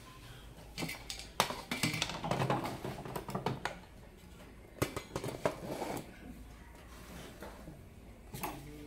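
Handling noise from taking apart a solar lamp: a cluster of clicks, knocks and light clattering of its plastic housing and aluminium reflector shade on a wooden bench, lasting about five seconds from about a second in, with one more knock near the end.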